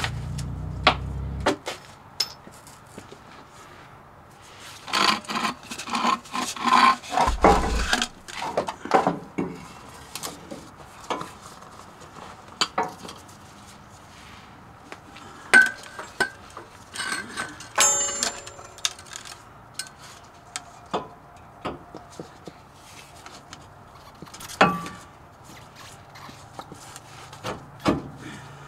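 Scattered metallic clinks, knocks and rubbing from parts and tools being handled while a pickup's shock absorber is changed. A busier stretch of handling noise comes about five to nine seconds in, with sharp single knocks later on and a brief squeak a little past halfway.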